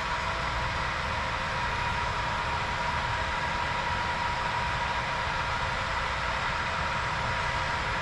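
Steady diesel engine sound from the LokSound sound decoders of HO scale model BNSF diesel locomotives running as a train, playing through their small onboard speakers, with a steady whine running through it.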